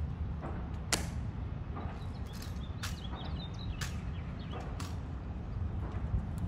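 Sharp clicks of Tomb guards' metal-tapped shoe heels striking the stone plaza as two soldiers march off, roughly one step a second, over a steady low rumble of wind on the microphone.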